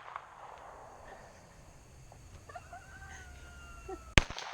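A single 9mm Glock pistol shot goes off near the end, sharp and the loudest sound here. Before it, a rooster crows in the background with one drawn-out, slightly falling call.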